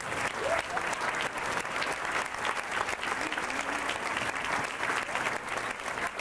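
A roomful of people applauding steadily, with one pair of hands clapping close by.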